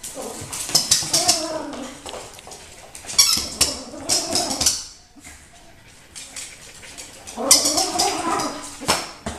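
A Yorkshire terrier puppy worrying a toy mouse on a wooden floor in three noisy bouts. Each bout has wavering pitched sounds and quick clicks of claws and toy on the floorboards.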